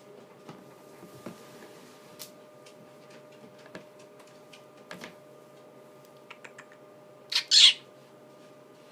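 Green-cheeked conure giving two short, harsh, high-pitched squawks in quick succession near the end, after a few faint clicks and taps.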